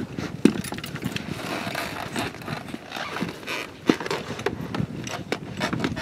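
Knocks, scrapes and footsteps on pavement as a pilot gets up wearing a paramotor with its engine off, the frame and cage knocking as it is shifted. Two sharper knocks stand out, about half a second in and near four seconds in.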